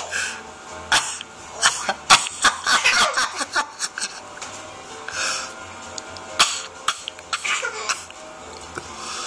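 A young child giggling and coughing in short bursts, with sharp coughs about a second in and again past six seconds.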